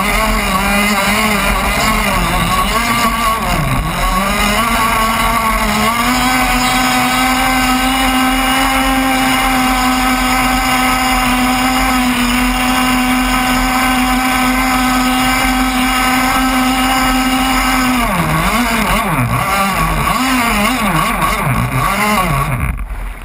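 Motor of a radio-controlled scale catamaran, heard close up from the boat's own deck, running hard over choppy water. The pitch wavers with the throttle at first, holds steady and high through the middle, then rises and falls several times before the motor cuts off just before the end.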